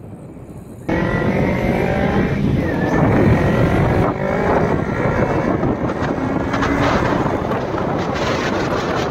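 Kawasaki Ninja motorcycle engine accelerating on the open road, its pitch rising, with wind rushing over the microphone. The sound jumps sharply louder about a second in.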